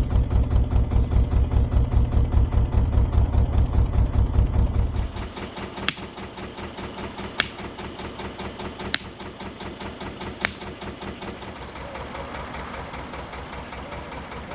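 A narrowboat's diesel engine running with a steady pulsing beat, dropping back to a quiet idle about five seconds in. Then four sharp metallic strikes come about a second and a half apart, typical of a hammer driving in a mooring pin.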